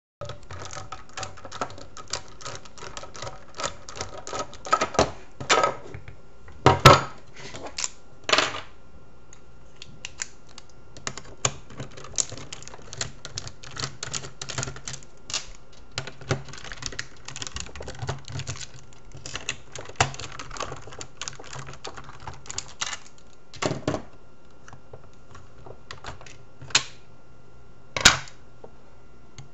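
Many small clicks and clacks as a Crosman 760 Pumpmaster air rifle is taken apart by hand: a screwdriver works the plastic stock's screws and the stock halves and small parts are handled, with a few louder clacks scattered through.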